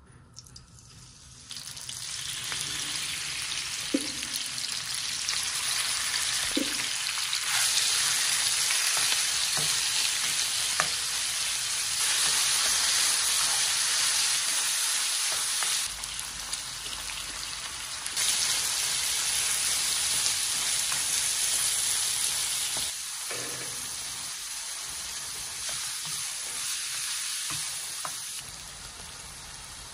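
Chunks of pork shoulder and pancetta sizzling loudly in hot olive oil in a nonstick pan, searing over high heat, starting about a second and a half in as the meat hits the oil. A wooden spoon stirs the meat, with a few short knocks against the pan.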